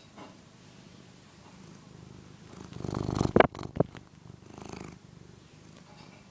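Tabby cat purring steadily while suckling on a soft fleece housecoat. About three seconds in, a close, louder rustle with two sharp knocks breaks over the purr.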